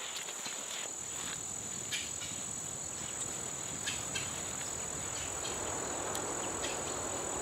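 Cricket-type insect singing one continuous high-pitched trill, with a few faint short ticks or chirps scattered through it over a steady outdoor hiss.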